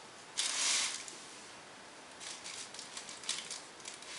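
Cookie wrapper rustling and crinkling as it is handled: a short rustle about half a second in, then a run of small crackles a couple of seconds later.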